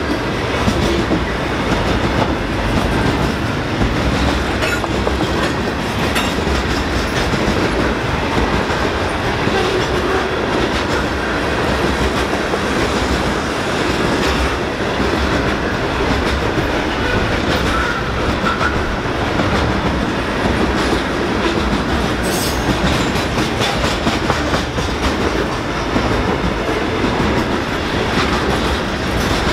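Freight train's open-top hopper cars rolling past close by: a steady rumble of steel wheels on rail, with scattered clacks as the wheels cross rail joints.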